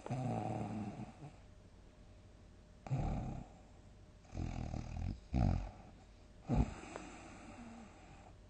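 A sleeping person snoring loudly: about five rough snores in quick succession, one long snore at the start, then shorter ones around the middle and another near the end.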